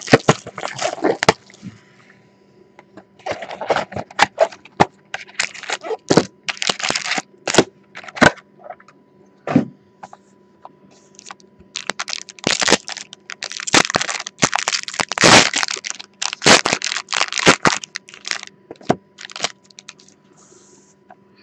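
Foil trading-card packs and plastic wrapping crinkling and being torn open by hand: bursts of sharp crackles with short pauses between them.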